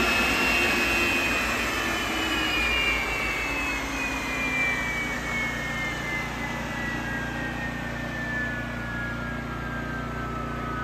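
Westinghouse J34 turbojet engine running with a loud rush, its whine falling steadily in pitch throughout as the engine winds down.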